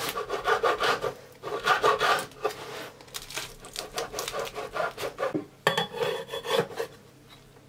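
A knife sawing through the crisp, flaky crust of a baked börek on a wooden cutting board, in a run of rasping, crunching strokes with short pauses. Near the end a metal spatula scrapes in under a slice.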